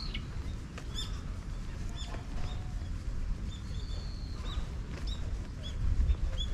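Small birds chirping: scattered short, high chirps over a steady low rumble.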